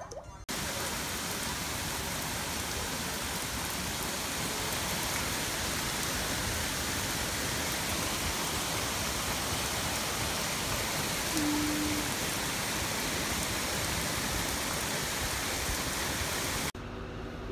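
Heavy rain pouring steadily onto a grassy yard, trees and pavement: an even, dense hiss. It starts abruptly about half a second in and cuts off shortly before the end.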